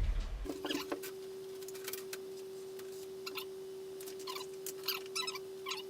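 HP wireless inkjet printer's mechanism at work, as during its start-up calibration: a steady hum with a scatter of short squeaks and clicks.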